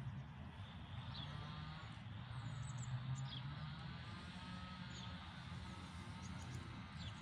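Quiet outdoor ambience: a steady low distant rumble with a few faint, short high bird chirps scattered through it.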